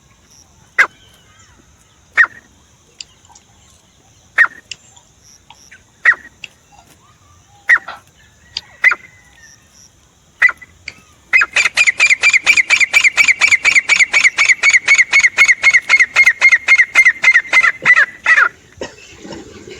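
Francolin (teetar) calling: single sharp call notes every second or two, then about halfway through a fast, even run of about five loud notes a second that lasts some seven seconds and stops abruptly.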